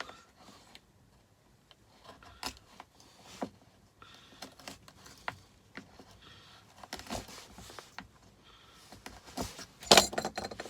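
Utility knife and electrical cable being worked through a 3D-printed plastic wire-stripping guide: scattered small clicks and scrapes of blade, cable and plastic, with a louder clatter near the end. The new blade is digging into the insulation.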